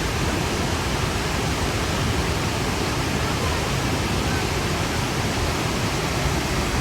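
Dhuandhar Falls on the Narmada River, its water crashing down in a steady, even rush of noise that does not change.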